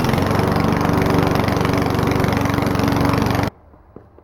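Small Briggs & Stratton single-cylinder engine of a walk-behind lawn mower running steadily, cutting off suddenly about three and a half seconds in.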